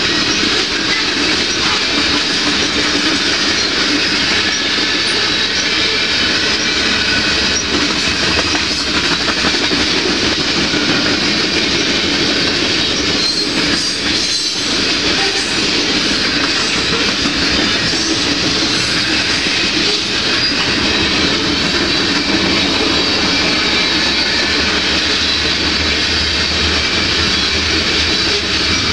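Cars of a CPKC freight train (hopper cars, boxcars and tank cars) rolling past close by: steel wheels running on the rails, steady and loud.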